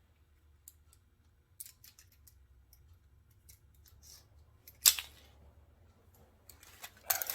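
Scattered light clicks from handling a rope pulley and its clamp, with one sharper, louder click about five seconds in.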